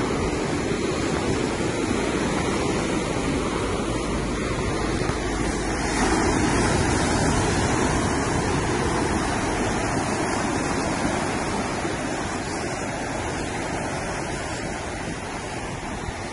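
Sea surf washing against the shore in a steady rush, with wind on the microphone. The surf swells about six seconds in and then slowly eases.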